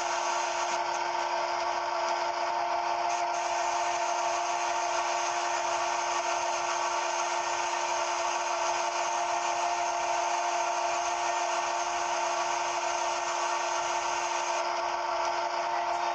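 A CNC machine running with a steady whine and hiss that does not change.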